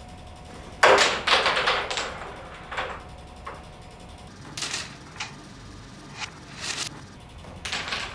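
Carrom striker and wooden carrom men clacking on a carrom board. A sharp clack about a second in is followed by a quick rattle of several clicks, then single clacks every half second to a second.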